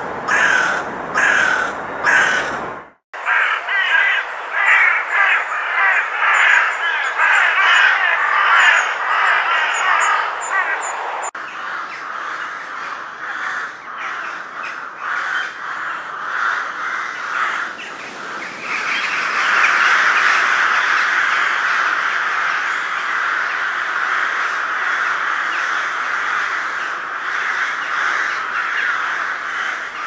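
Crows cawing: a run of about five separate caws, then, after an abrupt change about three seconds in, a flock of many crows calling over one another, growing denser and more continuous in the second half.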